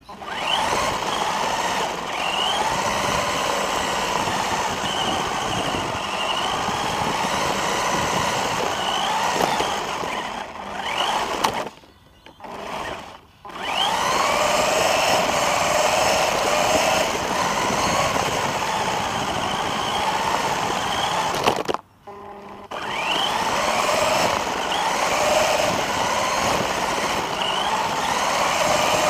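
Electric RC car's motor and drivetrain whining up close from on board, the pitch rising and falling again and again as the car speeds up and slows down, over the rush of its tyres on the ground. The sound stops briefly about twelve seconds in and again about twenty-two seconds in, when the car halts.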